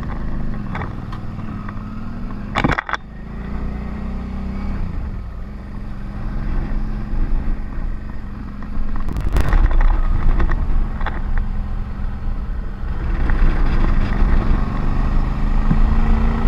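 Motorcycle engine running as the bike pulls away and rides on, with wind rushing over the helmet-mounted camera. It gets louder as the bike speeds up about nine seconds in and again near the end. There is a short sharp knock about three seconds in.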